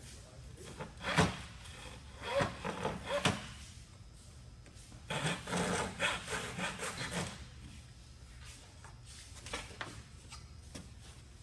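Thin wooden strips being worked by hand at a bench: short rasping strokes on wood, a few about one to three seconds in, then a longer run of quick strokes from about five to seven seconds, fading to faint handling sounds near the end.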